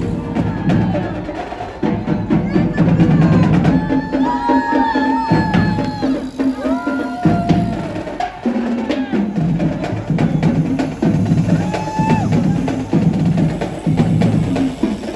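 Music with drums and percussion over a bass line, keeping a steady beat.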